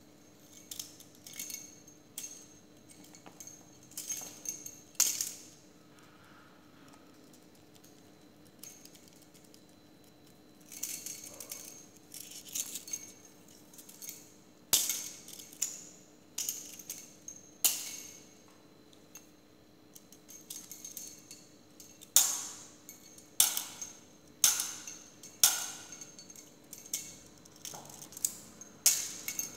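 A kitten playing with a string toy on a hard polished floor: bright clicks, taps and scrabbling in irregular clusters, some with a short high ring. The loudest ones come about five seconds in, around fifteen seconds in, and in a quick run through the last eight seconds.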